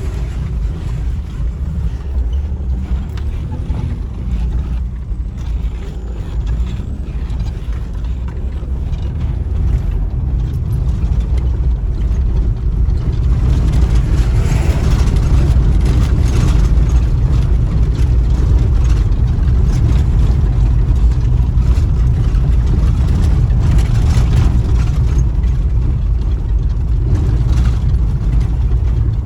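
A vehicle driving along a rough road under construction: a steady low rumble of engine and road noise that grows louder about halfway through.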